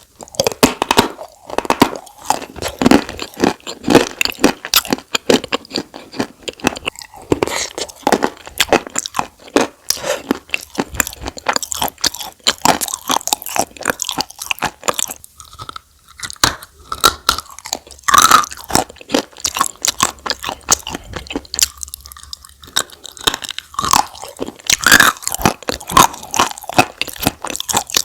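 Close-up crunching and chewing of chalk coated in wet clay paste: a dense run of dry, crackling crunches with a couple of brief pauses.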